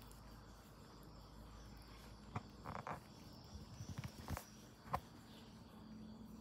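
Two cats play-wrestling on a tiled floor: a scatter of soft scuffles and light taps from paws and bodies through the middle, with one sharper tap about two thirds of the way through. A faint steady chirring of insects in the background.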